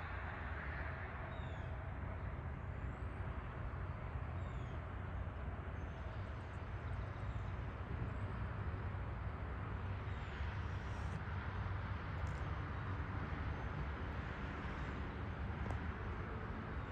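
Steady low rumble of distant road traffic, with faint short bird chirps above it.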